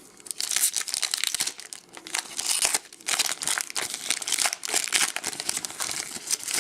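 Foil trading-card pack wrapper crinkling as it is handled, a continuous run of uneven crackles.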